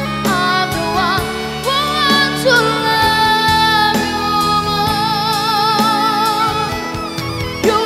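Background music: a song with a singing voice holding long notes with vibrato over steady instrumental backing.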